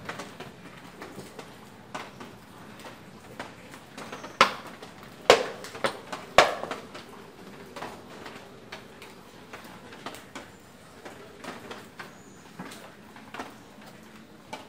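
Wooden-framed checkerboard with plastic checker pieces being moved and set down: three sharp clacks about four to six and a half seconds in, with lighter taps between them.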